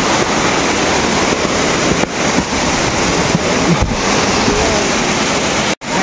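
Waterfall rushing, a loud steady wash of water noise, broken by a brief cut near the end.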